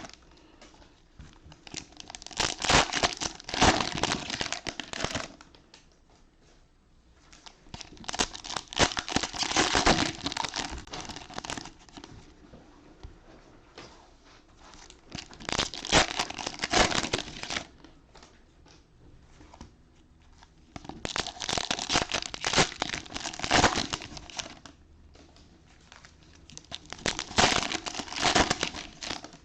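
Cellophane wrappers of Panini Mosaic football cello packs crinkling and tearing as the packs are opened one after another. The crinkling comes in about five bursts of two to four seconds each, with short quieter pauses between them.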